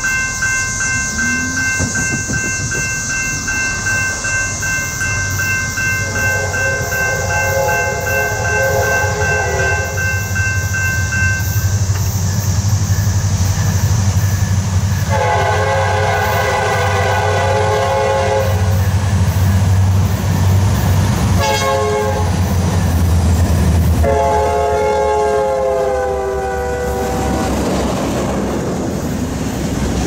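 Norfolk Southern diesel freight locomotive passing close by. Its bell rings steadily for the first dozen seconds. Its horn sounds the long, long, short, long grade-crossing signal, and the last long blast drops in pitch as the locomotive goes by. Under it all the diesel engine rumbles and the wheels run over the rails.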